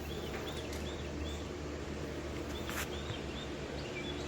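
Small bird chirping in short repeated notes, in quick runs of a few chirps, over a steady low background hum, with a brief rustle about three seconds in.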